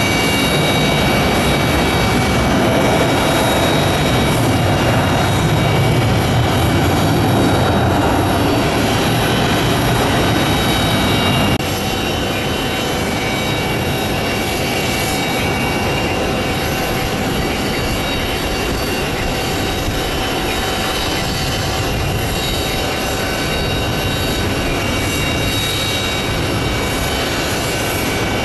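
Jet airliner engines on landing: a Boeing 737-800's steady engine noise with high, steady whines, which cuts off abruptly about a third of the way in, followed by a Boeing 767-300ER's engines on its landing, a little quieter.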